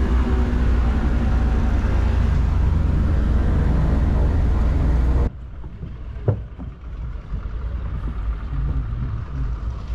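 Steady, loud engine drone that cuts off abruptly about five seconds in. After it comes a quieter low rumble with a few sharp knocks.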